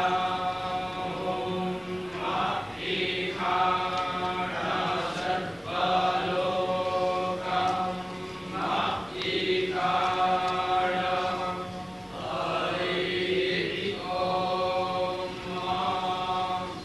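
Vedic pundits chanting a Vedic recitation, held notes in phrases of a second or two with short breaks between them, over a steady low hum.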